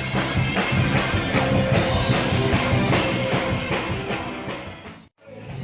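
Live pop band playing an instrumental passage with drums and bass, no singing. About five seconds in the sound fades and drops out completely for a moment, then the music comes back.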